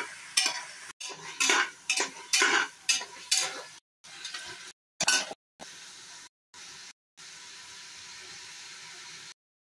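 Long flat metal spatula scraping and knocking against an aluminium pressure cooker while stirring shallots and tomatoes frying in oil, over a steady sizzle. The strokes come about twice a second in the first half; after that the sizzle goes on mostly alone, cut off suddenly several times.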